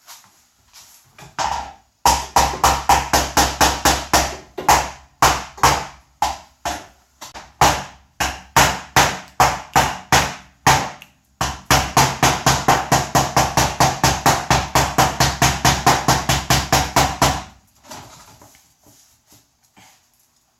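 Hammer striking a car fender from behind to pop out a dent: quick repeated blows on the sheet metal, about four a second, in two long runs with a short pause near the middle, stopping a few seconds before the end.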